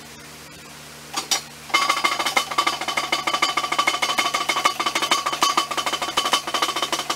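Hydraulic pump motor of a powered scissor lift table running as the table raises its load, with a steady whine and a fast rattle. It gives one short bump just after a second in, then runs continuously from a little under two seconds in.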